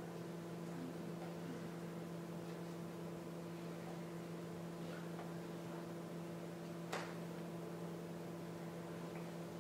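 Steady low electrical hum over faint hiss, with a single sharp click about seven seconds in.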